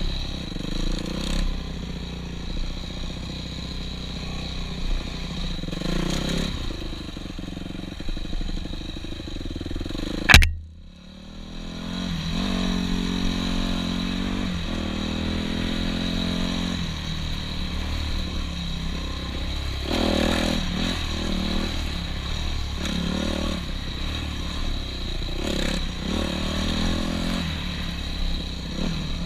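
Yamaha YZ250F dirt bike's single-cylinder four-stroke engine running and revving up and down while riding a rough dirt trail, with the bike clattering over bumps. About ten seconds in comes one sharp, loud crack, after which the engine sound briefly drops away and then comes back.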